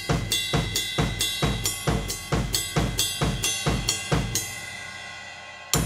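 Drum kit played in a steady, even groove, the sticks and hi-hat foot alternating with the bass drum at about four to five strokes a second. The playing stops about four seconds in and leaves the drums and cymbals ringing out, then starts again at the very end.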